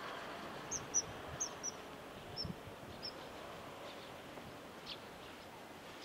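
Common kingfisher calling: a run of short, sharp, high-pitched notes, six in the first three seconds, over a steady background hiss.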